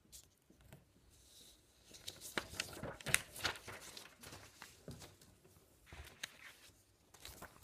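Close handling noise: rustling, crinkling and sharp clicks as papers and things on the table are moved right by the microphone. It comes in two bouts, the first about two seconds in and the second near the end.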